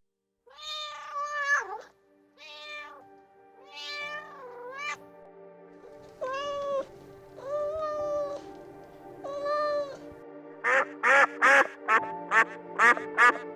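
A domestic cat meowing about six times, each meow bending in pitch, over background music with steady held notes. Near the end a quick run of short, loud calls follows.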